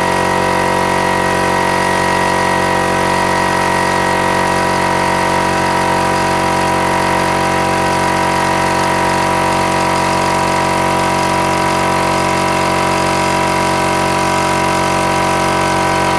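Small direct-drive air compressor running steadily and noisily, its motor and pump charging the tank.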